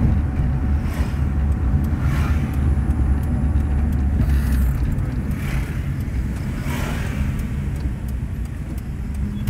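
Car driving, heard inside the cabin: a steady low engine and tyre rumble, with four or five short swells of noise as oncoming motorbikes pass.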